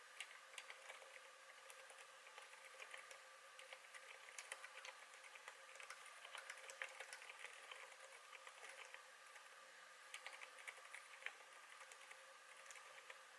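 Continuous typing on a KBD8x MKII mechanical keyboard with lubed Zilent silent tactile switches: a quick, steady run of faint, soft key clicks. A steady faint hum sits underneath.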